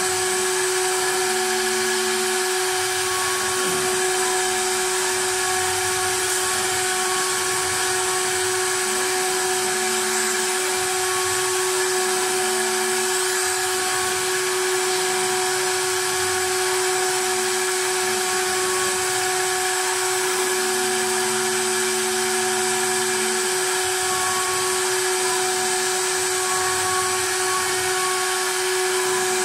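CNC wood lathe carving a wooden baluster: the high-speed carving spindle runs with a steady whine as it cuts the wood, over a lower motor hum that comes and goes.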